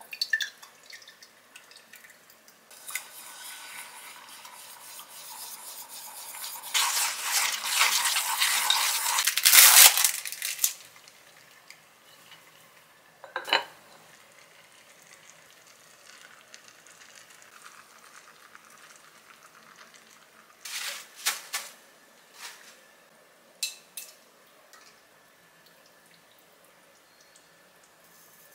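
Beaten egg stirred and sizzling in a hot ceramic ttukbaegi pot as steamed egg starts to cook, growing louder to a peak about ten seconds in and then stopping. A pot lid is set down with a single clink, and a few clinks of dishes follow near the end.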